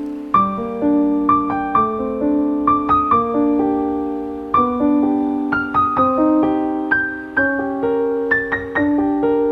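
Background piano music: a gentle melody of struck notes over sustained chords.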